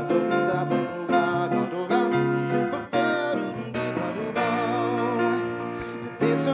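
Live jazz music from a grand piano and two acoustic guitars, with a male voice singing held notes with vibrato.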